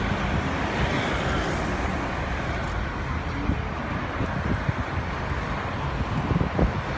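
Road traffic: cars driving past one after another across an intersection, a steady wash of engine and tyre noise, with low rumbling from wind on the microphone that grows in the last few seconds.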